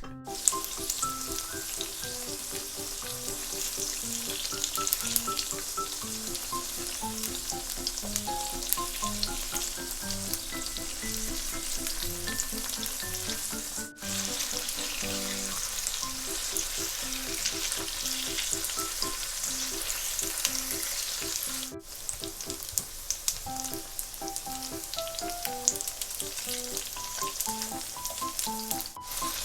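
Tofu frying in oil in a frying pan, a steady dense sizzle and crackle that breaks off briefly twice. Light background music with a bouncy melody plays under it.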